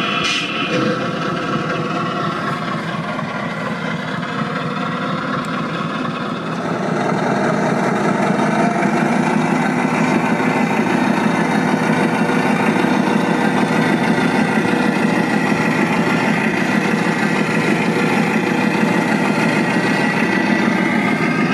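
Steady engine-like running sound of a radio-controlled 1/8-scale airport crash tender model. The hiss of its foam monitor spraying cuts off right at the start, and the engine sound grows louder about six seconds in as the truck moves off.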